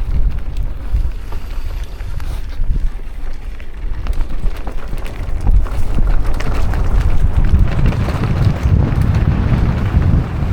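Wind buffeting the microphone of a camera on a moving trail rider, a low rumble with scattered clicks and knocks from the ride over rough ground. It grows louder from about halfway through.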